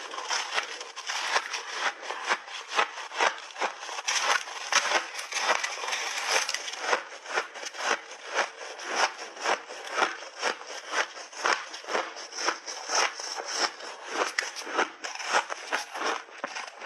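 Ice being chewed in big bites: a dense, continuous run of crisp crunches, several a second, with no pause.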